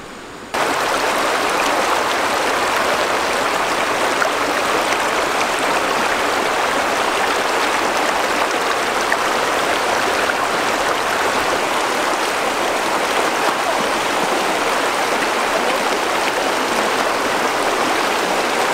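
Shallow, rocky stream rushing over stones: a steady hiss of running water that starts abruptly about half a second in.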